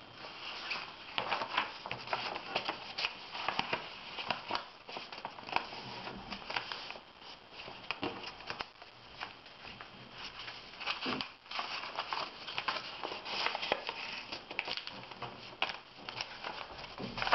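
Sheet of paper rustling and crackling as it is folded and creased by hand, with many small sharp crackles throughout.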